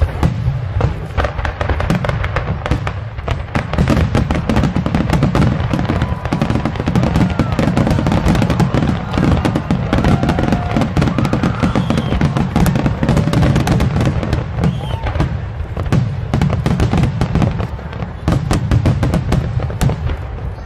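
Aerial fireworks shells bursting in quick succession: many sharp bangs and crackles, one after another, over a continuous low rumble.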